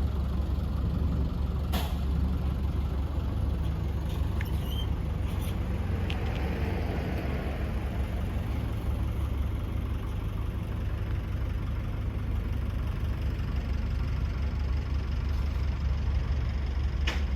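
Combine harvester's diesel engine idling steadily, with a sharp click about two seconds in and another near the end.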